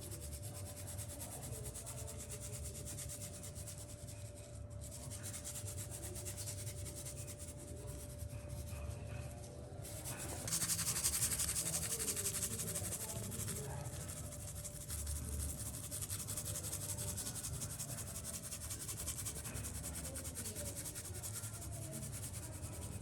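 Steady rubbing or scraping on a surface by hand, louder and hissier from about ten seconds in, over a faint steady hum.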